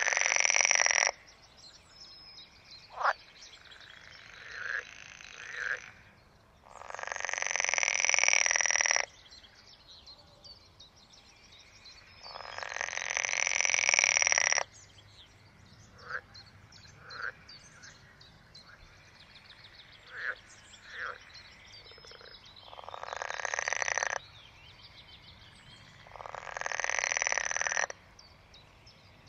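European green frogs (water frogs) calling: loud rattling croak bouts of about two seconds each, swelling as each goes on, four times, with short single croaks in between.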